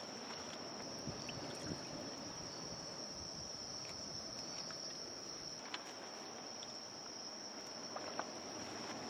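Crickets chirping in a steady, high-pitched chorus that never lets up, over a faint outdoor hiss, with a few tiny clicks.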